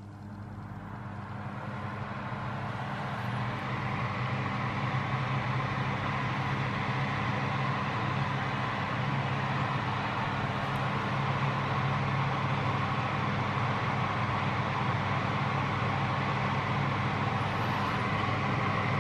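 Fan oven's convection fan motor starting up, building over the first few seconds, then running steadily with a low hum and rushing air noise.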